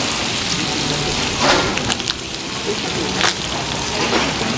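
Hotteok frying in margarine on a flat griddle, giving a steady sizzle, with two short sharp sounds about a second and a half in and again past the three-second mark.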